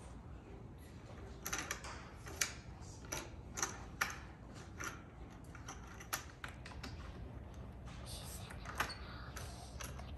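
Irregular clicks and knocks of a small piece being pushed along the track of a children's wooden activity wall panel. The clicks come singly and in quick clusters, starting about a second and a half in.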